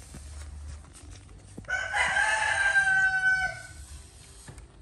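A rooster crows once: one pitched call of about two seconds, starting a little under two seconds in, held steady and dropping away at the end.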